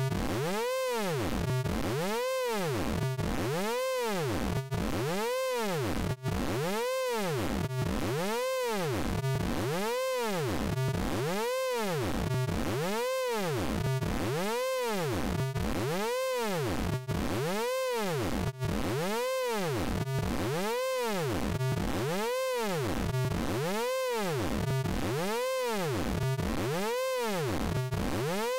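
Synthetic vocoder sound effect from the Orange Vocoder plug-in: an electronic tone that sweeps up and down in pitch over and over, a little more than once a second, in an even, unbroken loop.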